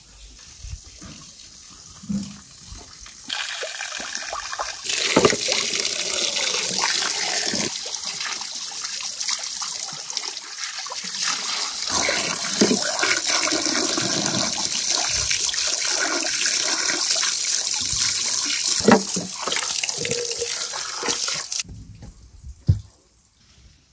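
A stream of water pouring and splashing over raw whole chickens in a pan while hands rub and rinse them, starting about three seconds in and cutting off sharply near the end. A single thump follows just after it stops.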